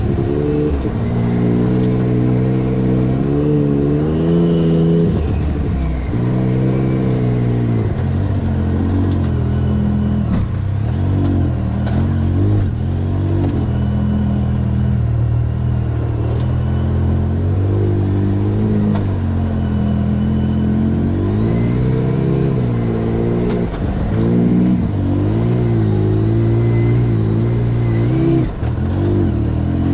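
Side-by-side UTV engine revving up and dropping back over and over as the throttle is worked, with a few sharp knocks around the middle.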